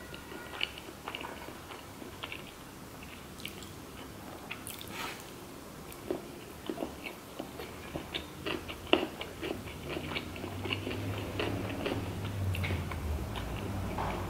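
Close-miked chewing and biting of sushi rolls: wet mouth sounds with many small clicks and crackles. A steady low hum comes up in the second half.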